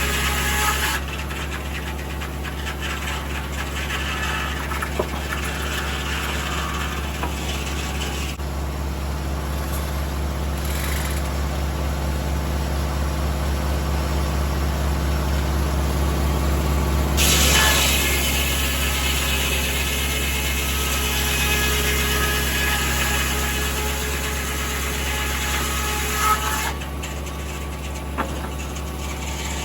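Tractor engine running steadily to drive a 1950 Corley circular sawmill. The noise brightens and grows a little louder a bit past the middle, typical of the blade working through a log, then drops back near the end.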